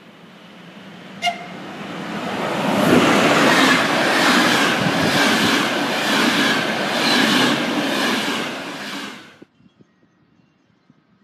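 Electric locomotive-hauled passenger train of Czech Railways coaches passing at speed. The sound swells as the train approaches, then runs loud with a rhythmic clatter of wheels over rail joints, about one beat a second, before cutting off abruptly near the end. There is a brief sharp blip about a second in.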